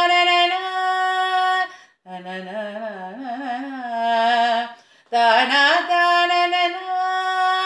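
A woman's voice singing a Carnatic-style melody unaccompanied on the vocables 'thanna naana': a long held note, then an ornamented phrase that wavers in pitch, then another long held note.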